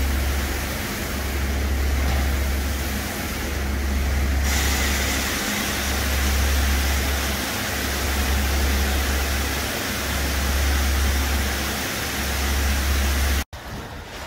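Truck wash brush gantry at work: water spraying with a steady hiss and rotating brushes turning, over a deep rumble that swells and fades about every two seconds. The spray gets louder about four and a half seconds in; near the end the sound breaks off for an instant and comes back quieter.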